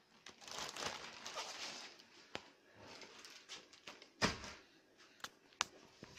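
Clear plastic bag of TV accessories crinkling as it is handled. Then a few sharp knocks and clicks follow, the loudest about four seconds in.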